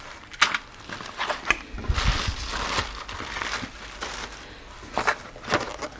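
Cardboard box of plastic tool tubes being handled: a few sharp clicks and knocks as the tubes are moved and set down, with a stretch of rustling about two seconds in.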